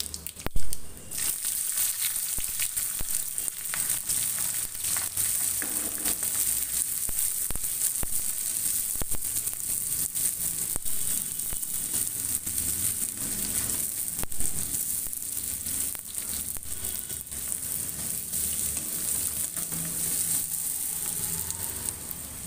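Sliced onions tipped into hot oil in a black kadai, sizzling loudly as they land about half a second in. After that a steady frying sizzle, with the spatula scraping and stirring the onions against the pan.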